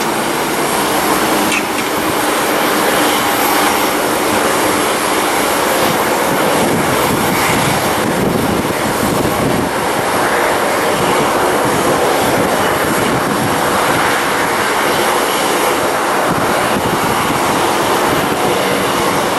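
Boeing 737-900ER taxiing, its CFM56-7B turbofan engines running at low taxi power: a steady rushing engine noise.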